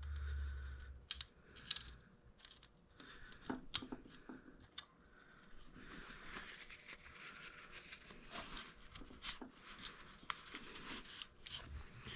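Small metal engine parts being handled and fitted by hand: scattered light clicks and taps, then soft rustling from about halfway through.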